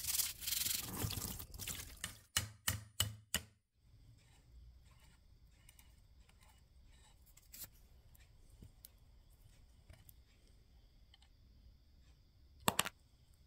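A stiff plastic brush scrubbing a wet cast-iron drill frame, ending in four quick strokes about three seconds in. Then quiet, with faint small clicks of metal parts being handled and one sharp click near the end.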